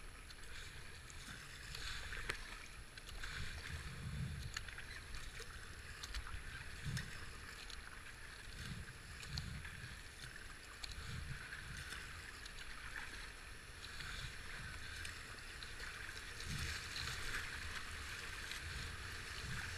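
Fast river water rushing and splashing around a kayak running a rapid, with the low splash of paddle strokes every second or two.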